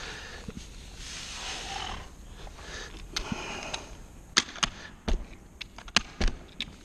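Hands rubbing and pressing across carpet pile along a glued-down seam, a soft rustling, then several sharp clicks and knocks as a small hand seam roller is handled and set down on the carpet.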